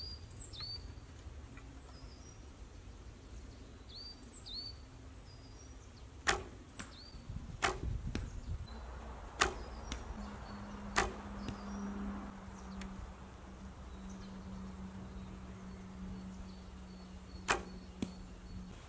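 Recurve bow being shot: several sharp snaps of string and arrow spread through the clip, a couple of them in quick pairs. Small birds chirp in the first few seconds.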